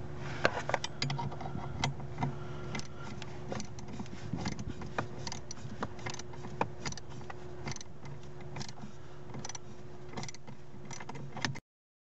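Irregular clicks and knocks of hands and tools working on a truck's brake pedal assembly and brake light switch under the dashboard, over a steady low hum. The sound cuts off sharply near the end.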